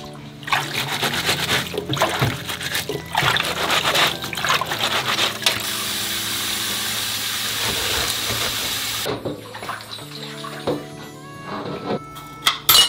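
Water splashing in a stainless steel kitchen sink as vegetables are rinsed by hand, then a tap running steadily for about three seconds before it stops. Background music plays throughout, and a couple of sharp knocks come near the end.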